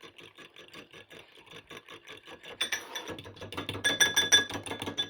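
A fork beating an egg wash with brown sugar in a bowl, rapid clinking at about six strokes a second that grows louder partway through.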